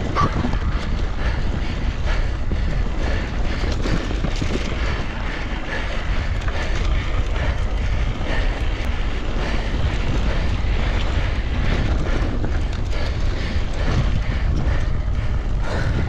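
Wind buffeting the microphone while riding an electric mountain bike, a steady low rumble with many small rattles and knocks from the bike over the ground.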